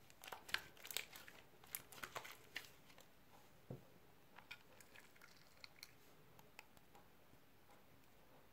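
Green slime squeezed and kneaded in the hands: faint squishes and small crackling pops, coming thick and fast for the first few seconds and then more sparsely.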